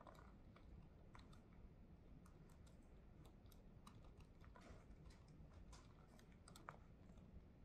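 Faint typing on a laptop keyboard: soft, irregular key clicks over a low room hum.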